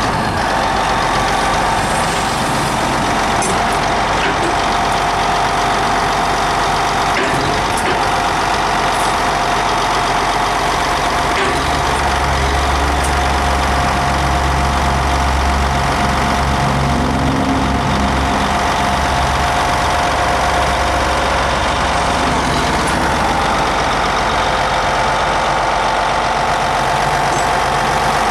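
Caterpillar D8T bulldozer's C15 diesel engine running steadily, with a constant high whine over the engine note. A deeper rumble strengthens for several seconds about twelve seconds in, then eases back.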